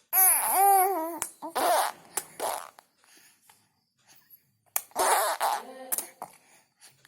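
A baby making funny vocal sounds: a wavering, warbling pitched sound about a second long at the start, then a few short breathy bursts, and a longer one about five seconds in.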